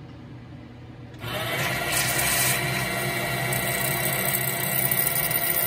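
Fast hole EDM drilling a start hole with a brass tube electrode. A low machine hum gives way about a second in to a loud, steady buzzing hiss as the electrode starts burning into the steel block.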